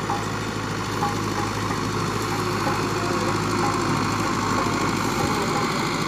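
Fiat 640 diesel tractor engine running steadily under load as it pulls a 16-disc harrow through sand. It gets a little louder in the second half as the tractor draws near.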